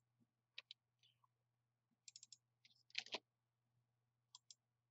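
Faint computer mouse and keyboard clicks: short clicks mostly in close pairs, with a quick run of key taps about two seconds in and a louder pair about three seconds in.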